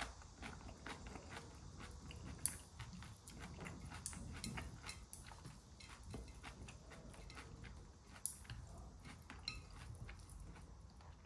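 A person chewing food close to the microphone, with small irregular crunches and clicks, and two sharper clicks about two and a half and eight seconds in.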